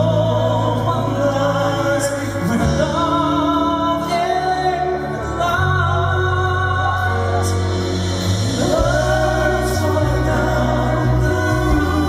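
Male voices singing live in harmony, with held, wavering notes over a sustained instrumental accompaniment; the chord changes about three-quarters of the way through.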